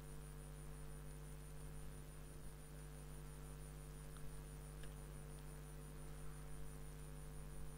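Quiet steady electrical hum with a faint high whine, and a couple of faint mouse clicks a little past the middle.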